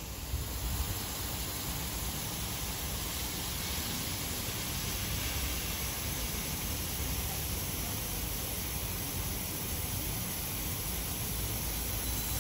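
Park lawn sprinklers spraying a fine mist, a steady, even hiss of water spray over a low rumble.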